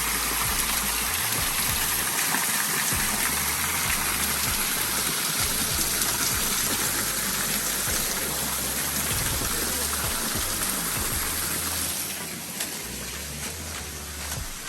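Steady rush of falling water, a loud even hiss that eases somewhat about twelve seconds in.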